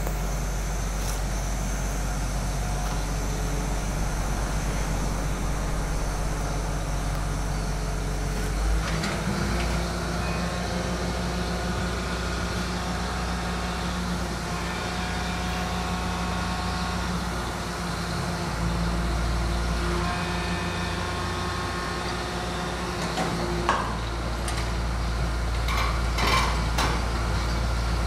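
Diesel engine of a hydraulic excavator running steadily as it digs. Its note shifts about nine seconds in and again around twenty seconds, with a few short knocks near the end.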